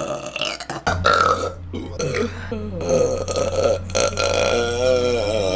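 A woman belching repeatedly: several short burps in the first few seconds, then one long burp with a wavering pitch starting about two-thirds of the way in.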